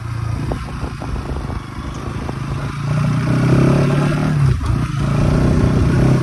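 Motorcycle engine running under way on a dirt track, getting louder from about halfway through as the rider opens the throttle.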